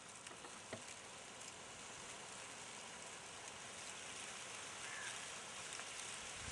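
Faint, steady outdoor hiss with a few soft clicks and a brief faint chirp about five seconds in.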